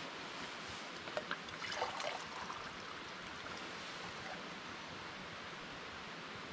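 Steady rushing of a small stream running close by, with a few light clicks and rustles about one to two seconds in.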